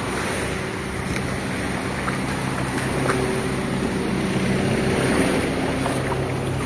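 Backhoe loader's diesel engine running steadily close by, with small waves washing onto the sand.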